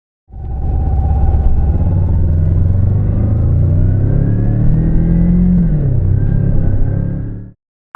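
Kawasaki Ninja 250's parallel-twin engine running under way, its pitch rising slowly as it accelerates and then falling off, heard from the bike. The sound starts suddenly just after the beginning and cuts off suddenly near the end.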